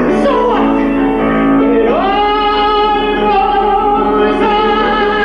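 A woman singing, a falling phrase at first, then sliding up about two seconds in into one long held note.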